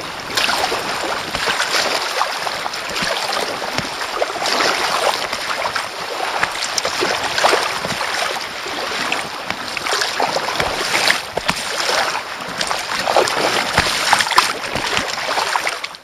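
Water splashing and rushing along a kayak as it is paddled over choppy sea, with louder splashes from the paddle strokes every couple of seconds.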